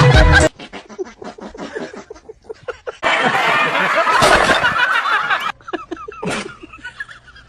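People snickering and laughing in short rapid pulses, growing louder and fuller about three seconds in, then falling back to quieter pulses.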